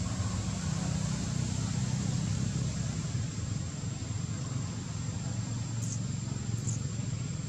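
Steady low outdoor background rumble with a constant thin high whine over it, and two brief high chirps near the end.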